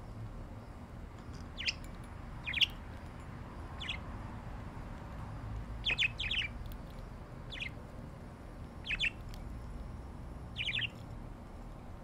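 Budgerigars giving short, sharp chirping calls, about eight of them at irregular intervals, some in quick doubles.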